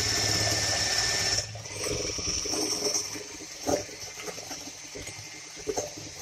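Electric hand mixer running with its twin wire beaters whisking egg whites in a glass bowl, a steady motor whine with a few clicks. It is louder for about the first second and a half, then continues more quietly. The whites are being beaten to a stiff white foam.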